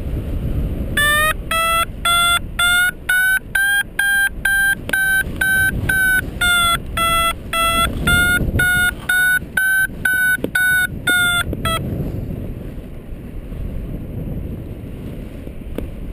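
Paraglider variometer beeping its climb tone, short beeps at about three a second whose pitch rises at first and then holds: the sign of a strong climb in a thermal. The beeping stops about three-quarters of the way through. Wind rushes on the microphone underneath.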